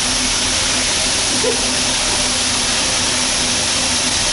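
Steady hiss of a waterfall's spray and falling water close at hand, with a faint steady hum of the boat's engine underneath.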